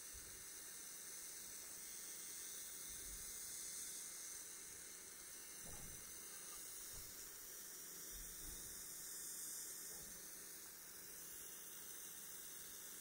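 Faint steady hiss, with a few soft low bumps about six, seven and eight seconds in.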